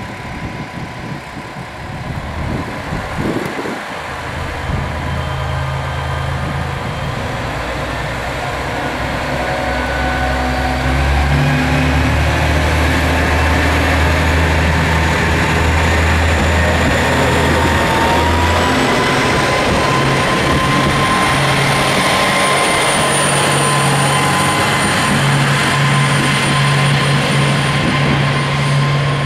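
KiHa 47 diesel railcars pulling away from a station: the diesel engines rev up and run under load, a deep steady engine drone with a whine, growing louder through the first dozen seconds and then holding. About 18 seconds in the whine steps up in pitch as the engine note changes. A short thump sounds about three seconds in.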